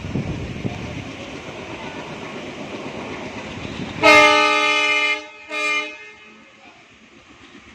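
Indian Railways train rumbling and clattering along the track, then a locomotive horn sounds one long blast about four seconds in, followed by a short second blast.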